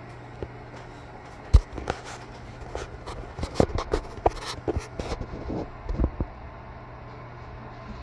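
Scattered clicks and knocks, the loudest about a second and a half in, over a steady low hum: handling noise from the phone filming the screen.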